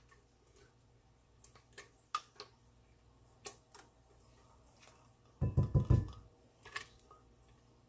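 Kitchen handling sounds as marinade ingredients are put together: several light clicks and taps of utensils and containers, then a loud, low thudding burst lasting under a second a little past the middle.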